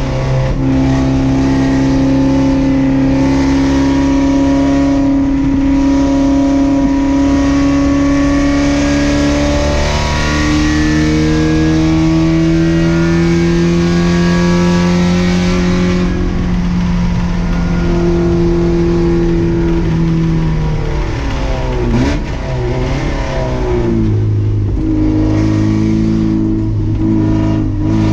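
Race car engine heard from inside the car, pulling steadily up through the revs down a straight. About three quarters of the way through the engine note breaks and drops as the driver lifts and slows for a corner, then it picks up again.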